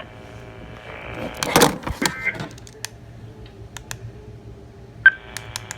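Faint hum and hiss of a weather radio receiver between broadcasts, broken by a cluster of clicks and rattles about one and a half seconds in and a single sharp click about five seconds in.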